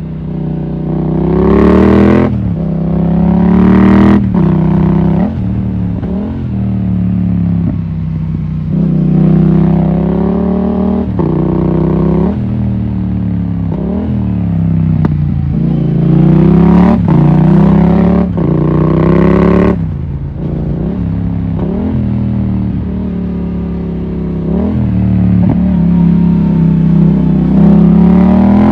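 Yamaha MT-07's 689 cc parallel-twin engine under way, its revs climbing and falling again and again. A few sharp cracks come at the top of the revs near the start and about two-thirds of the way through.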